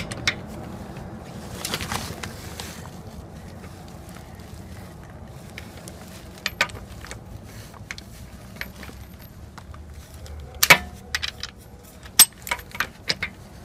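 Scattered light metallic clicks and knocks from a socket, extension and digital torque adapter being handled on a car wheel's lug bolt, most of them in a cluster near the end, over a low steady background hum.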